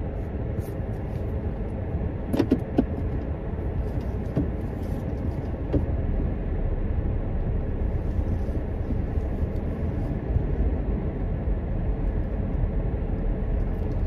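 Steady low rumble of road and engine noise heard inside a car's cabin while driving, with a few sharp clicks about two and a half seconds in.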